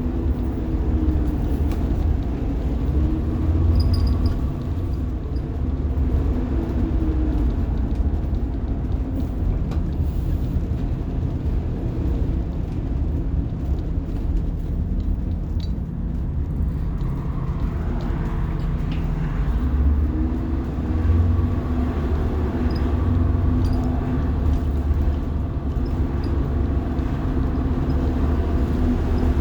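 Rear-mounted diesel engine of a 1990 Blue Bird All American school bus pulling the bus along, heard from inside the cabin as a deep steady rumble. Its pitch rises and falls several times as the bus speeds up and eases off, with a long climb about two-thirds of the way through.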